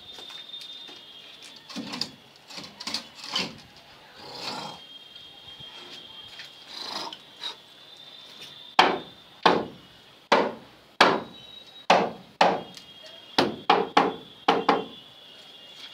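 Hammer striking the wooden frame of a panel-board box set into a brick wall: a few lighter knocks at first, then, from about halfway through, a run of about a dozen sharp blows, roughly two a second. A faint steady high whine runs underneath.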